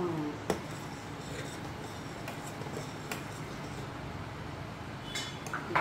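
A spoon clicking twice against a steel saucepan while thick custard is stirred, over a steady low hiss.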